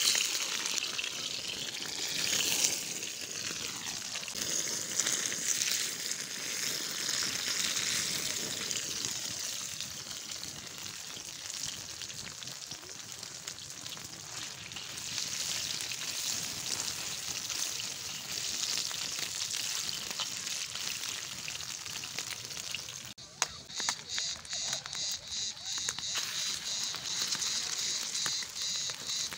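Sausages sizzling and frying in a steel pan over a wood fire, a steady dense hiss. After a short break about three-quarters of the way in, the sizzling goes on with a rhythmic high-pitched insect chirping behind it.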